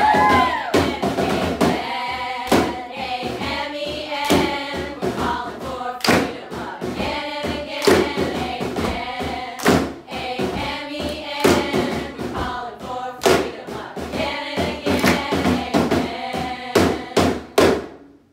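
Group of stage performers singing a song from a musical together, with sharp percussive beats about two to three a second driving the rhythm. The sound cuts off abruptly near the end.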